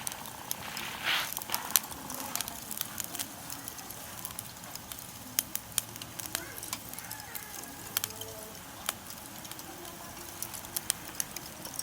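A wood fire crackling and popping in a compact folding fire pit, with sharp irregular snaps over a low steady hiss.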